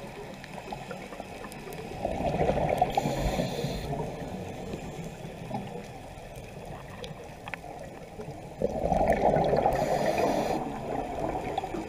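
Scuba diver breathing through a regulator underwater: two breaths, each a bubbling rush with a short hiss, about 2 and 8.5 seconds in, over a steady low underwater background.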